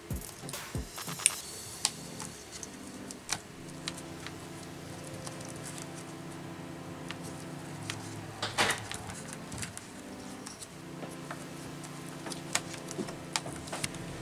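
Soft background music of sustained chords, with scattered clicks and light taps of small parts being handled during work on a transistor radio; a louder cluster of clicks about eight and a half seconds in.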